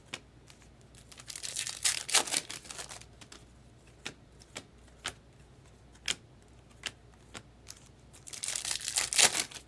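Trading card pack wrapper being torn open and crinkled in two bursts, about a second in and again near the end, with scattered light clicks of cards being handled in between.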